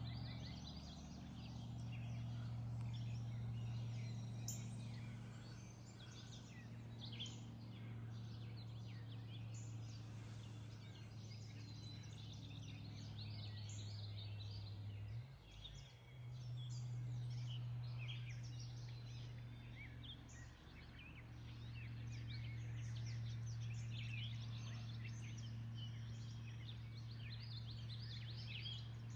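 Outdoor bird chorus, many short chirps and calls overlapping, over a steady low hum that briefly drops out about halfway through.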